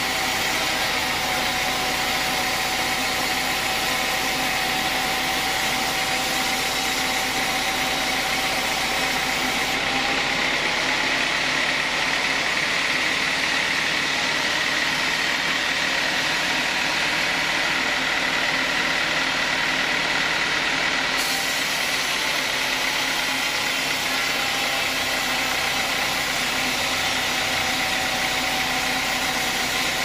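Sawmill band saw running and cutting lengthwise through a teak log: a steady machine noise with a high, even whine.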